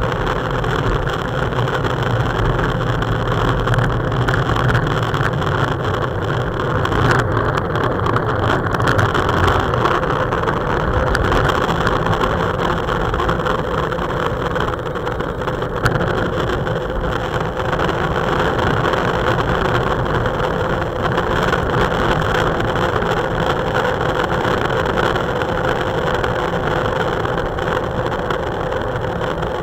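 Steady wind rush over a handlebar-mounted camera's microphone, with road-bike tyre and road noise, while riding at about 30 km/h, under a faint steady hum.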